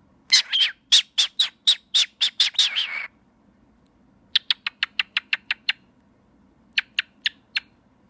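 Cockatiel chirping right at the phone in three runs of short, sharp calls: about eleven over the first three seconds, a faster run of about ten in the middle, and four more near the end. It is the chatter of a happy, playful cockatiel.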